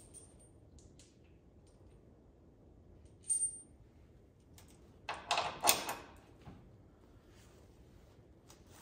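Small steel washers and bolts clinking as they are handled and fitted. A single bright metallic ting comes about three seconds in. A short, louder cluster of clatter comes a little after the middle, with faint ticks between.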